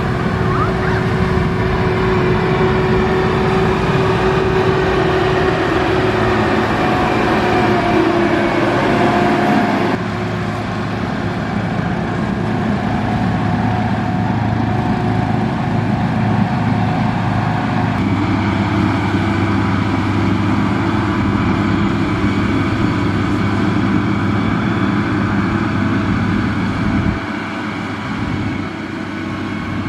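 Heavy construction machine's diesel engine running steadily, its sound shifting abruptly about ten seconds in, again near eighteen seconds, and once more near the end.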